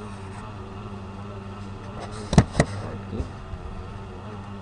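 Steady low electrical or motor hum, with two sharp clicks in quick succession about two and a half seconds in.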